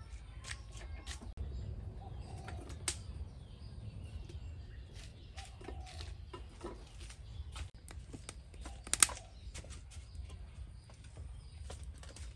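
Scattered clicks and knocks of kitchen items being picked up and set down, the sharpest about nine seconds in, over a low steady rumble.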